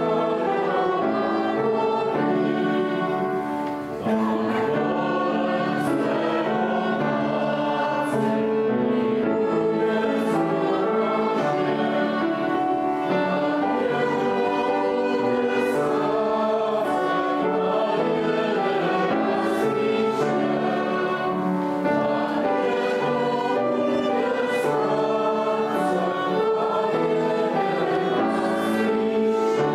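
Choir singing with instrumental accompaniment, on held notes that change about every second.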